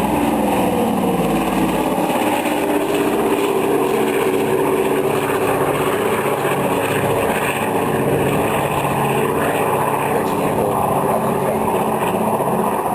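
De Havilland Canada Caribou's twin piston radial engines and propellers running, a loud steady drone whose pitch shifts slowly up and down.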